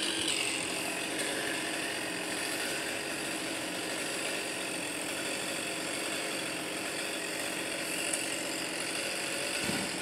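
An engine idling steadily, holding one even pitch with no revving.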